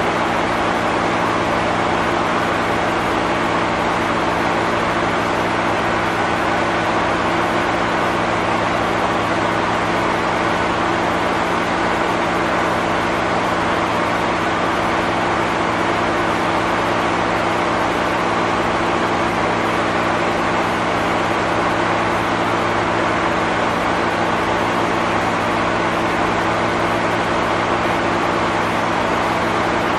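Steady mechanical ambience: an even rushing noise over a low, unchanging hum of several steady tones, with no breaks or changes.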